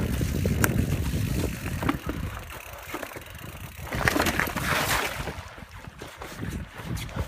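Wind rushing over a phone microphone strapped to a rider's chest during a fast downhill mountain-bike run, over the rumble of tyres on a dirt trail and rattling clicks from the Canyon Spectral mountain bike. A louder rush of noise about four seconds in eases off after about five seconds.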